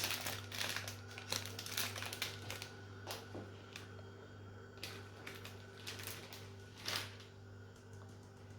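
Light, irregular clicks and rustles of a utensil being tapped and shaken to dust cocoa powder over a tiramisu, busiest at first, with a few sharper taps later and one louder tap about seven seconds in. A steady low hum runs underneath.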